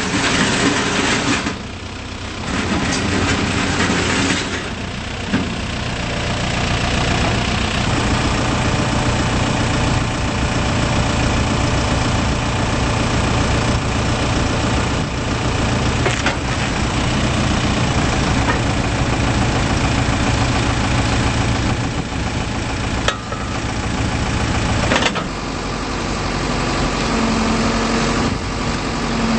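The 2008 Volvo BL60 backhoe loader's diesel engine runs steadily. Its level dips briefly about 2, 5 and 25 seconds in, and its note changes near the end, where a steady higher hum comes in.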